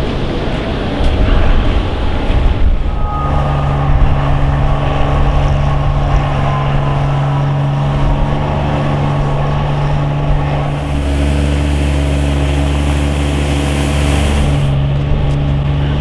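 A vehicle engine running with a steady low drone, under a blustery rush of wind noise in the first few seconds. From about eleven seconds in, a louder hiss joins for roughly four seconds.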